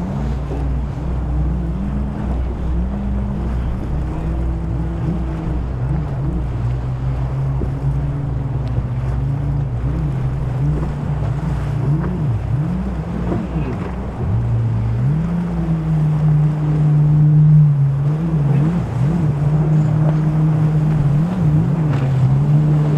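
Several motorboat engines running, their pitch rising and falling as the boats throttle up and down and pass, over wind and water noise. A louder, steadier engine note takes over about fifteen seconds in.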